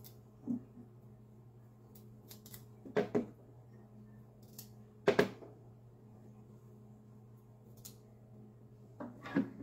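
Chef's knife cutting through fresh broccoli stems held in the hand: a few short, crisp cuts, about half a second in, twice around three seconds, the loudest just after five seconds and two more near the end. A low steady hum runs underneath.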